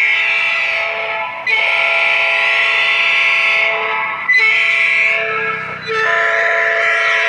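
Electronic horn module playing a train-horn sound through a loudspeaker, loud and steady in pitch, with no air. It sounds in long blasts with short breaks: one ends about a second in, then three more follow.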